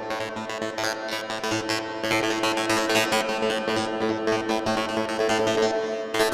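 Keyboard music, piano or synthesizer, playing a quick run of notes over held tones.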